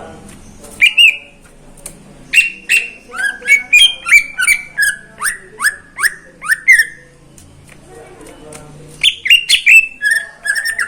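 Cucak ijo (green leafbird) singing: loud, sharp whistled notes that each sweep downward, delivered in rapid runs with a pause of about two seconds before the song resumes near the end.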